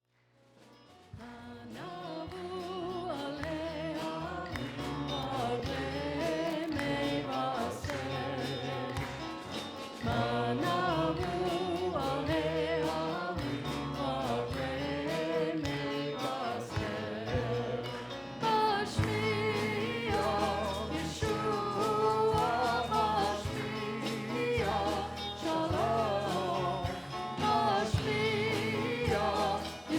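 Music with singing: voices over instrumental backing with a bass line. It fades in at the start and gets fuller about ten seconds in.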